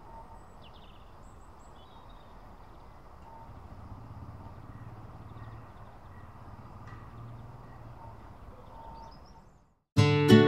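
Outdoor background noise with a low rumble that swells in the middle and a few faint bird chirps. Near the end the sound cuts out, and strummed acoustic guitar music starts.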